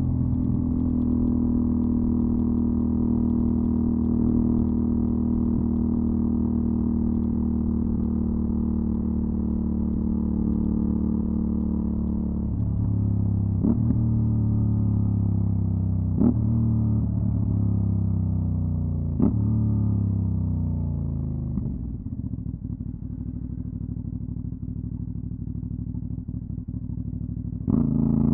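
Aprilia Dorsoduro 750 Factory's V-twin, through a LeoVince SBK exhaust, running at a steady note, then slowing with its pitch falling and three short sharp spikes along the way. It settles quieter and low, then picks up again with a rising note right at the end.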